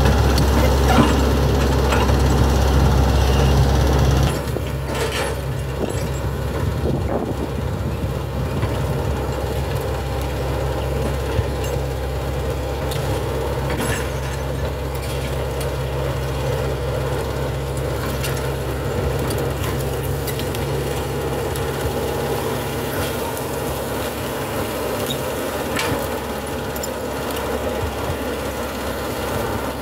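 Hitachi hydraulic excavator's diesel engine running steadily, louder for the first four seconds, then settling to a lower, quieter level. Occasional short knocks and cracks come through as it works.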